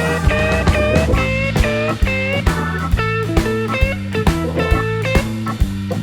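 Background music: guitar-led blues-rock with bent guitar notes over a steady bass line and drum beat.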